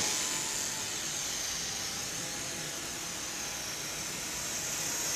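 Tiny electric motor and propeller of an Ares Tiger Moth 75 ultra-micro RC plane running with a steady high-pitched whine and hiss.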